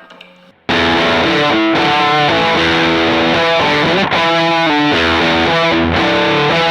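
Electric guitar played through a fuzz effect on a Kemper Profiler, a heavy distorted tone in which the fuzz adds its own octave. It comes in loud after a moment of quiet and runs as a string of held notes with a slide partway through.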